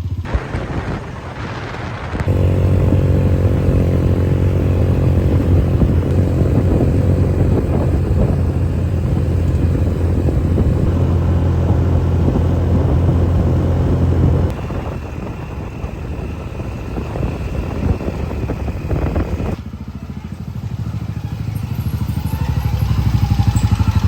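Motorcycle engine running steadily while ridden along; it eases off about fourteen seconds in and picks up again near the end.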